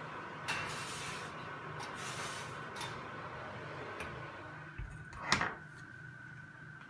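A wire-mesh basket of glassware slid onto a shelf of a laboratory drying oven with a scraping rattle, then the oven's metal door swung shut and latched with a sharp thud a little after five seconds in. A steady faint tone and hum run underneath.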